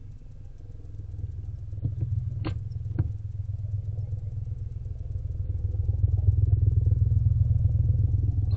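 A low engine-like rumble with a fast, even pulsing, growing louder over the last few seconds, with three short sharp clicks about two to three seconds in.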